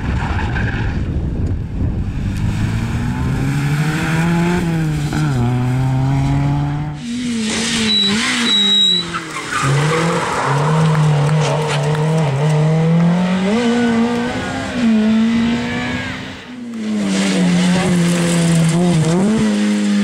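Rally car engines at full effort on a gravel stage: a Ford Sierra RS Cosworth's turbocharged four-cylinder, then two other rally cars in turn, each engine note climbing and dropping with throttle lifts and gear changes, with tyre noise on the loose surface. The sound breaks off about 7 seconds in and again near the end as the next car comes through.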